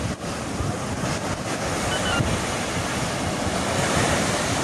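Sea surf breaking and washing up a sandy beach, a steady rush of water.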